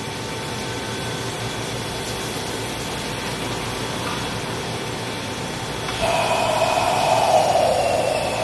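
Mori Seiki NH6300DCG II horizontal machining center running, with its rotary pallet table indexing and axes moving: a steady machine hum, and a louder whirring from about six seconds in that falls slightly in pitch.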